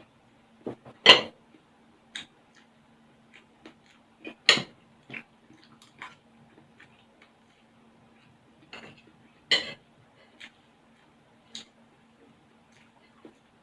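Spoon and fork clinking against a plate while eating, three louder strikes and many small clicks between them, over a faint steady hum.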